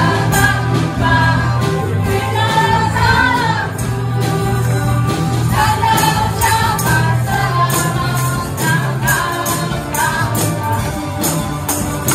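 Live gospel praise music: group singing over a band, with tambourines jingling in time with the beat.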